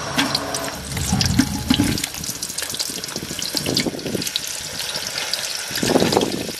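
Hot oil sizzling and crackling in an aluminium handi pot as halved onions are dropped in to fry, with dense spitting ticks throughout and a few duller low swells from the onions going in.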